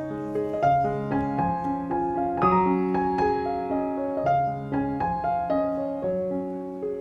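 Background piano music: a gentle melody with held chords.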